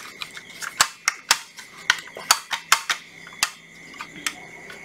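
Irregular sharp clicks and clacks of plastic and metal from the base plate and depth-adjustment mechanism of a Hitachi 18V brushless cordless circular saw (C 18DBL) being worked up and down by hand, the mechanism sticking.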